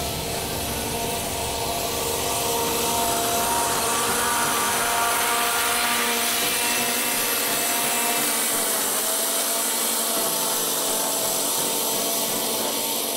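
Scag Tiger Cub zero-turn mower running with its blades cutting tall grass. The engine's pitch rises as it passes close about halfway through, then drops as it pulls away.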